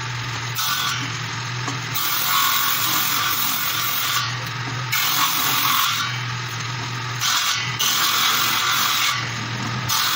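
Table saw motor running with a steady hum while a wooden batten is ripped lengthwise along the fence. The cutting noise swells and eases again several times as the board is pushed through the blade.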